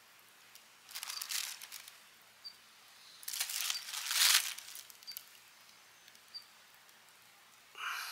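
A thin plastic bag rustling and crinkling as a hand rummages in it, in two bursts: a short one about a second in and a longer, louder one from about three to four and a half seconds.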